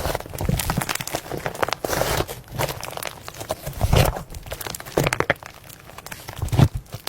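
Slime being squeezed and pressed by hand, giving irregular crackling and popping.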